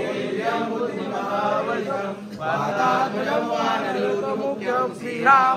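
Group of devotees, mostly men, chanting a Hindu devotional hymn together in unison. Sung notes are held and glide up and down, with a brief dip about two seconds in.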